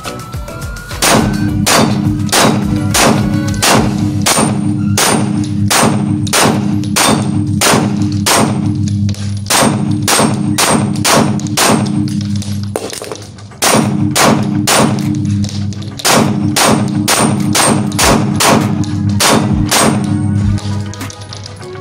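Rapid strings of pistol shots from a CZ P-10 SC 9 mm, about two to three a second, over a backing music track that drops out briefly about halfway through.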